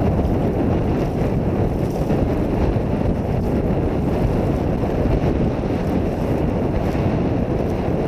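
Wind buffeting the microphone of a boat-mounted camera, with water rushing along the hull of a small sailboat heeled under sail, a steady rumbling noise throughout.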